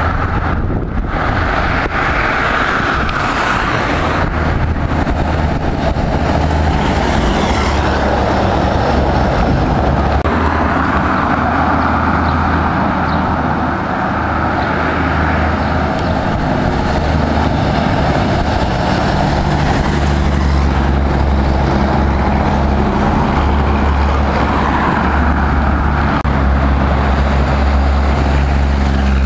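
DAF 95 ATi 430 truck's inline-six diesel running through a straight-piped exhaust as it drives on the road: a steady deep rumble under road and traffic noise, loudest near the end as the truck comes close.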